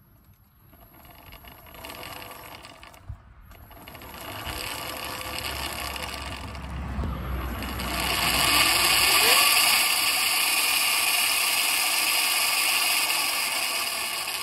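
800-watt 36-volt brushed DC motor spinning up under throttle and driving a #35 roller chain onto a 60-tooth rear sprocket, with a whine that rises in pitch as it gains speed and then holds steady at top speed. The chain clatters as it runs, and it still needs tightening.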